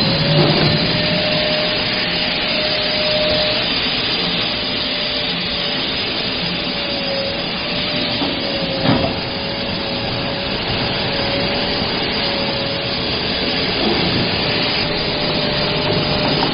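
Spiral paper core machine running steadily, a dense rushing, rubbing machine noise with a steady, slightly wavering whine over it. A single knock about nine seconds in.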